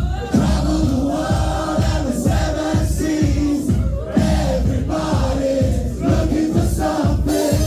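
Live band playing a song with a steady bass beat of about two beats a second, while a crowd sings along.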